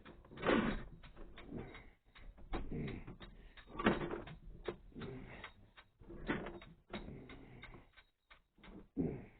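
Irregular knocks, clicks and short scraping rustles as a sewer inspection camera's push cable is fed down the sewer line.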